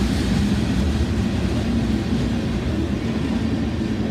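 Freight train cars, a covered hopper and tank cars, rolling past: a steady low rumble of steel wheels on the rails.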